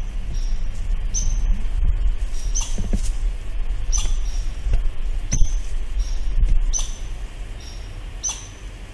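American red squirrel calling with short, high-pitched chirps, roughly one a second, over a steady low rumble.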